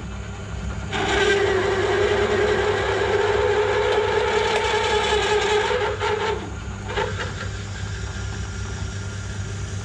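Myford lathe running at its lowest speed with a steady motor hum, while a large blacksmith drill bit fed from the tailstock cuts into a steel bar. The cutting sound comes in about a second in and holds for about five seconds, loading the lathe, then drops away, leaving the motor hum.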